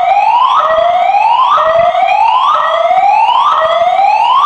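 Fire alarm voice evacuation system sounding its alert tone, a whooping siren-like sweep that rises in pitch and repeats about once a second. It is the evacuation signal that goes with its recorded evacuation message.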